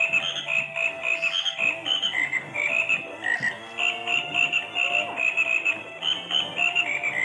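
Motorised toy frog running, giving electronic croaking sounds as quick high chirps several times a second over a steady buzz from its movement motor.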